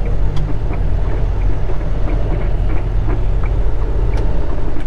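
A semi-truck's diesel engine running with a steady low hum, heard from inside the cab as the truck rolls over rough, bumpy asphalt, with a few short knocks and rattles.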